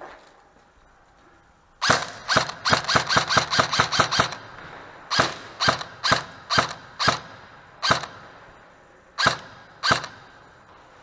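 Airsoft guns firing: a quick burst of about ten shots, then single shots about half a second to a second apart, the last two near the end.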